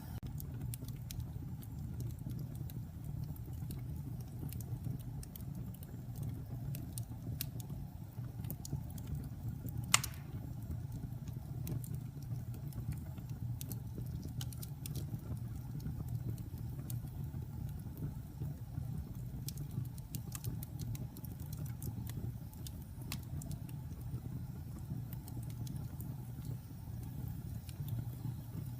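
Wood fire burning in a fireplace: a steady low noise of the flames with scattered small crackles and one loud pop about ten seconds in.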